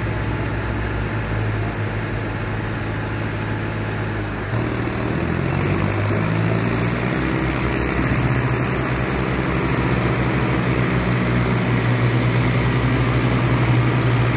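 Tractor diesel engines running under load as the tractors crawl over rough rocky ground, a steady low drone. About four and a half seconds in the engine note changes and grows louder, and it keeps rising slowly after that.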